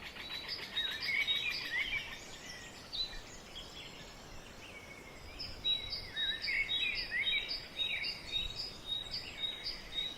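Wild birds singing: several chirping calls in the first few seconds, then from about halfway a bird repeating a short chirp a couple of times a second.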